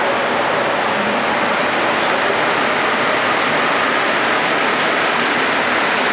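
Rubber-tyred Montreal Metro train running through the station, a steady, loud rushing noise with no breaks.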